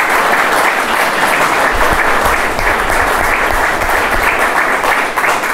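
Audience applauding steadily, dense clapping from a seated crowd.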